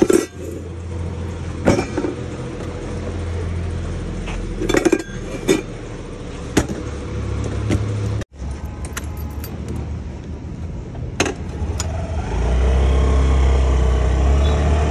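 Stainless-steel exhaust pipes clink and knock as they are packed into a scooter's under-seat storage, over a low engine rumble. Near the end the Honda scooter's engine gets louder as it is ridden off.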